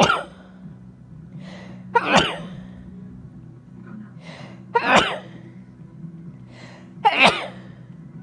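A person sneezing four times in a fit, about two to three seconds apart, each sneeze preceded by a fainter catching breath. It is a sneeze fit that the uploader puts down to allergy season.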